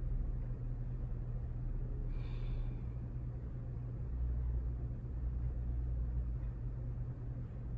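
Steady low hum of room noise, with a brief faint hiss about two seconds in.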